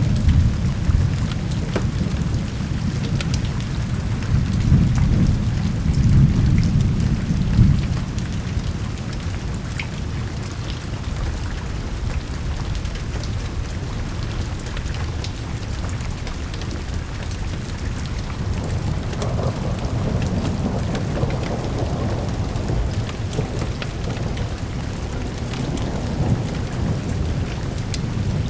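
Steady rain with low rolling thunder, the rumble swelling and loudest between about four and eight seconds in.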